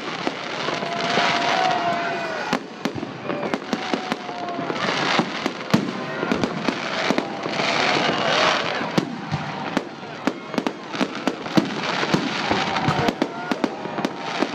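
Fireworks salute going off: a dense, irregular run of sharp bangs, several a second, over continuous crackling, with louder swells of bursts about a second in, about five seconds in and about eight seconds in.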